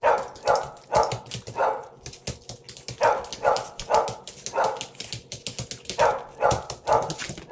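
A dog barking repeatedly, about two barks a second, in three runs with short pauses between them.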